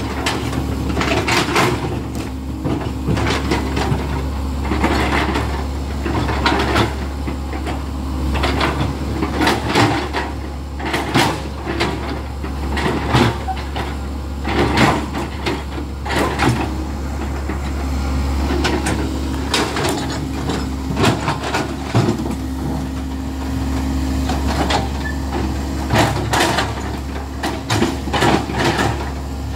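Komatsu hydraulic excavator's diesel engine running steadily under load, with frequent clanks, knocks and scrapes as the steel bucket digs rock and mud in the water.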